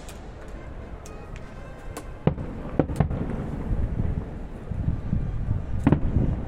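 Fireworks exploding: sharp bangs from about two seconds in and again near the end, over a continuous low rumble and crackle of bursting shells.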